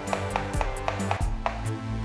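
A chef's knife chopping garlic cloves on a wooden cutting board in quick, repeated strikes, several a second, over background music.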